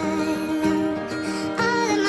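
Background music: a melody over held, sustained tones.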